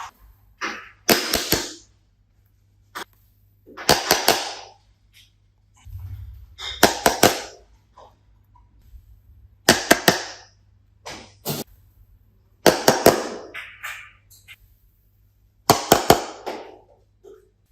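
Slime being squeezed and pressed by hand, giving clusters of sharp crackling pops about every three seconds.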